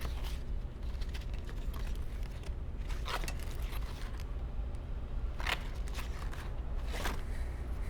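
Steady low hum with four short clicks or knocks: one at the start, then about three, five and a half and seven seconds in.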